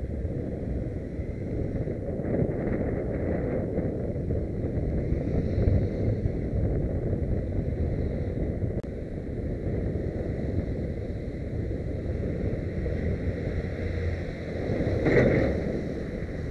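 Wind buffeting a bicycle-mounted camera's microphone over road and traffic noise while cycling. Near the end a skip lorry overtakes close by, bringing a brief louder swell.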